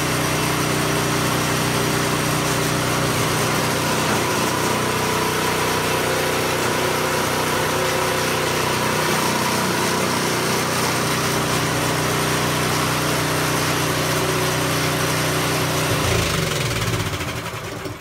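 PowerSmart DB765124 snow thrower's 212 cc single-cylinder four-stroke engine running steadily, then switched off about two seconds before the end, its pitch falling as it winds down to a stop.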